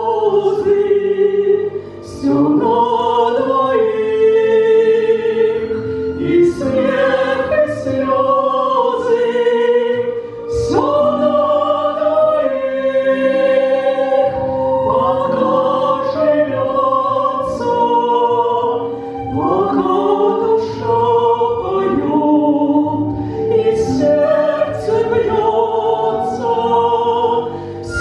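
Classical vocal music: operatic-style singing with vibrato, held notes and sliding entries, more than one voice line sounding together.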